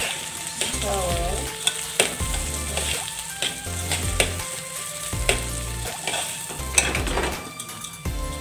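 Uncooked rice grains and grated carrot being mixed by hand in an aluminium pot: a steady rustling of grains with sharp clicks every second or so as the rice and the hand knock against the metal side.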